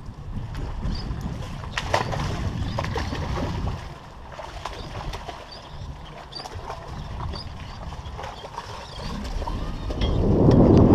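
Wind buffeting an action camera's microphone, a steady low rumble with scattered light clicks and knocks; the rumble swells much louder near the end.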